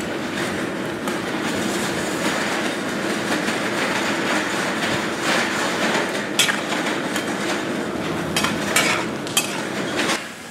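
Kitchen cookware clatter: metal utensils clinking and knocking against pots and pans over a steady rushing noise, with a few sharp clinks in the second half.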